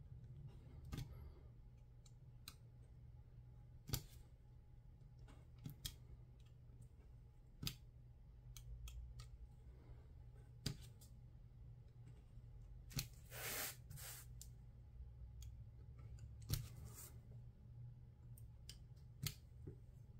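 Faint, scattered ticks and short scratches of a snap-off craft knife blade cutting small pieces out of paper, with one longer scraping cut about two-thirds of the way through.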